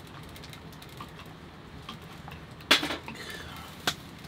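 Metal tableware clinking: utensils knocking against small steel bowls and the cooking pot. A few light ticks, then a sharp clink a little under three seconds in and a smaller one about a second later, over a low steady hum.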